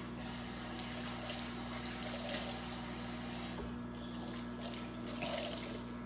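Water running steadily from a tap into a sink, with a constant low hum underneath.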